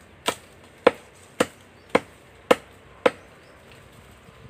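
Chopping into a living tree trunk with a hand-held blade: six sharp blows about half a second apart, stopping about three seconds in.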